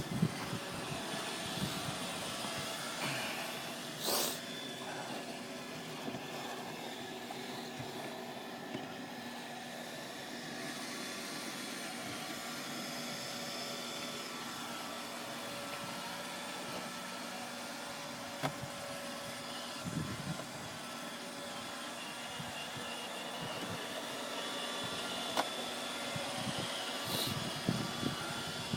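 Roomba 580 robot vacuum running, its motor and brushes giving a steady hum and whine, with a few short knocks along the way.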